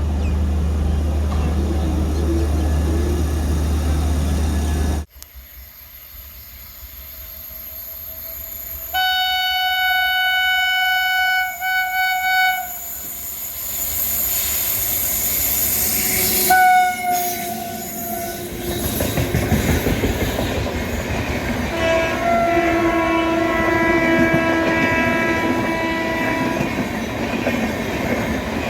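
WAP7 electric locomotive's horn sounding again and again as the train pulls out: a long blast about nine seconds in with a brief break, a short toot a few seconds later, and a longer two-tone blast near the end. Steel wheels clatter over the rail joints, growing louder as the train passes. A steady low hum at the start cuts off suddenly about five seconds in.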